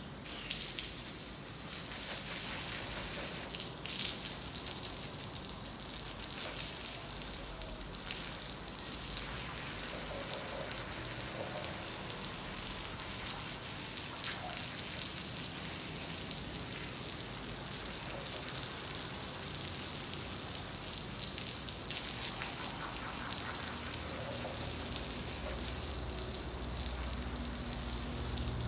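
A jet of water spraying and splashing onto a soapy rug and the tiled floor around it, rinsing off the foam: a steady hiss of spray with a patter of splashes.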